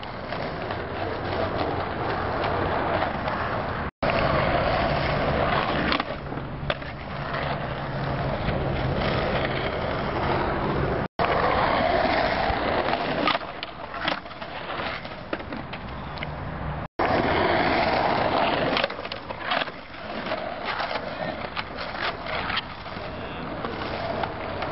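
Skateboard wheels rolling over rough parking-lot asphalt, broken by sharp board pops, slaps and landings, in several short clips with sudden cuts between them.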